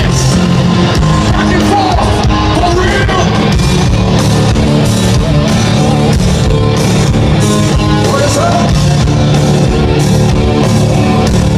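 Alternative metal band playing live, loud and continuous: heavy rock instruments at full volume.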